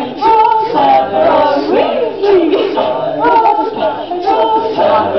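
Several voices singing a cappella in layered parts, with held, sliding sung notes.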